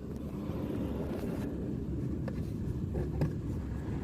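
A steady low rumble with a few faint short clicks about two and three seconds in.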